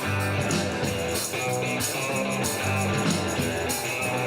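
Live band playing an instrumental passage of a country-rock song: electric guitar over bass and a steady drum beat, with no singing.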